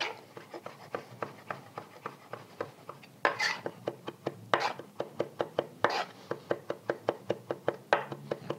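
Chef's knife rapidly chopping parsley on a wooden cutting board: a fast, even run of taps, about five a second. A few times the blade scrapes across the board to gather the chopped leaves, giving a louder, longer swish.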